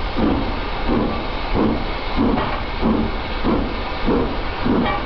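Steam locomotive working a train at low speed: steady, evenly spaced exhaust beats, a little under two a second, over a continuous steam hiss.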